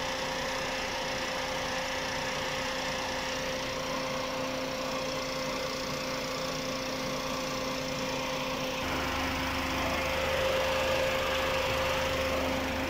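Suzuki Alto 660cc three-cylinder engine idling steadily with the air conditioning running while refrigerant is charged, with a steady whine over it. About nine seconds in, a deeper steady hum joins.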